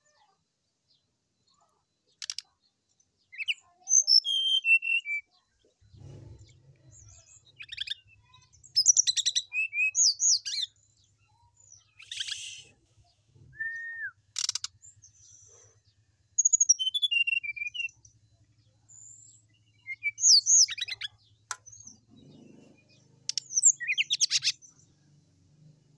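Brown-chested jungle flycatcher singing in full voice: short bursts of varied whistles, chirps and fast rattling trills, with mimicked calls worked in, coming every second or two after a near-silent start.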